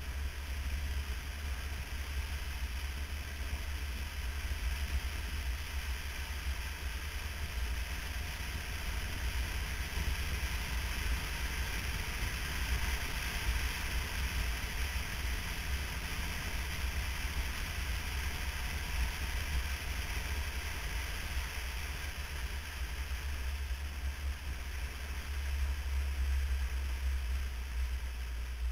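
Motorcycle riding at road speed: steady wind rush and low buffeting on the bike-mounted camera's microphone, with road and engine rumble underneath, swelling briefly about halfway through and again near the end.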